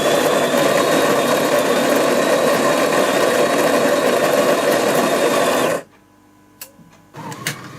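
Bean-to-cup coffee machine's built-in grinder grinding beans, a loud steady whirring that stops abruptly about six seconds in. Near the end a much quieter steady hum starts as the machine moves on to brewing.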